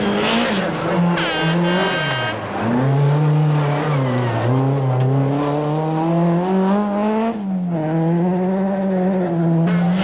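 Skoda Felicia Kit Car rally engine at full load as the car passes: its pitch falls about two seconds in, climbs steadily for several seconds, then drops sharply as it shifts or lifts, and settles. A brief high squeal sounds about a second in.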